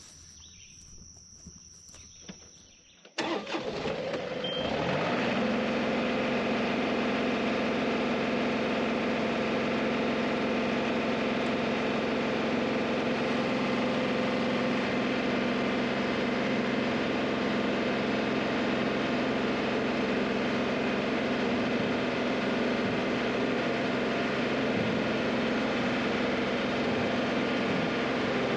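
John Deere compact tractor's diesel engine running steadily, heard from the operator's seat. It comes in suddenly about three seconds in after faint outdoor quiet, picks up speed over the next second or two, then holds steady.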